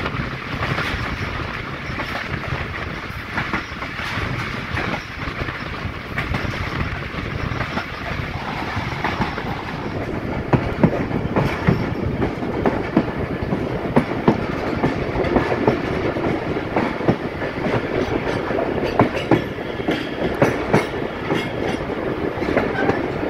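Passenger train running along the track, with a steady rumble and the clickety-clack of wheels over rail joints. The clacks grow sharper and more frequent from about halfway through.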